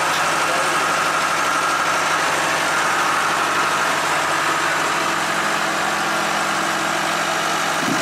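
Engine idling steadily, an even low hum with no change in speed.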